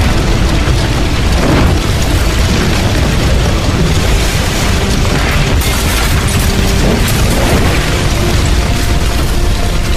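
Sound effect of a large building collapsing: a continuous heavy rumble with crashes of falling debris, under music.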